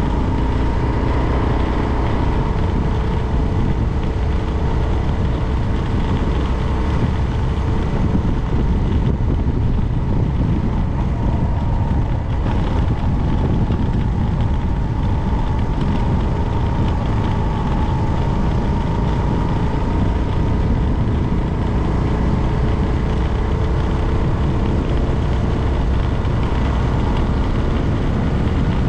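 A motor vehicle running on the move: a steady low rumble with a faint hum that drifts slowly up and down in pitch.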